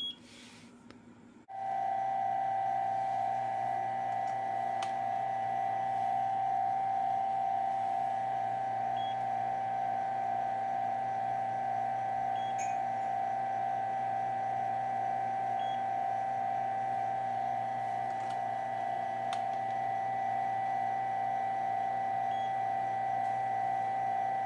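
A steady high-pitched hum with a fainter low hum beneath it, starting abruptly about a second and a half in and holding at one pitch throughout.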